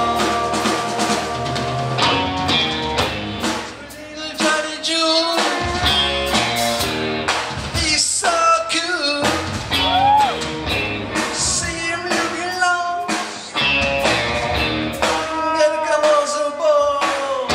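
Live rock band playing: two electric guitars over drums, with a singing voice at times, heard from the audience.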